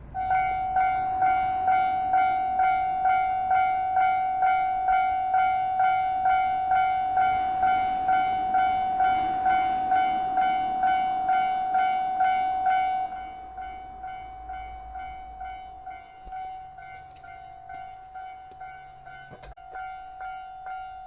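Japanese railway level crossing alarm ringing its electronic bell tone, about two strokes a second. About 13 seconds in it drops sharply to a quieter level and keeps ringing.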